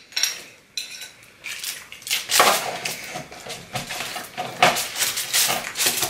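Metal forks scraping and clinking against a foil tray and a ceramic bowl while cheesy chips are picked up. The scrapes and clicks come in a busy run from about a second and a half in.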